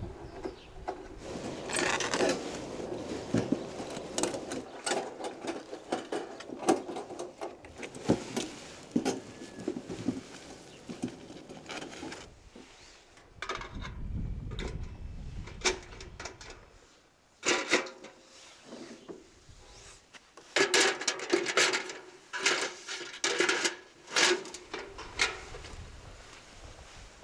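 Wire mesh grates clinking, rattling and scraping against the rims of galvanized steel buckets as they are fitted in one after another, with irregular knocks throughout and a busier stretch of clatter near the end.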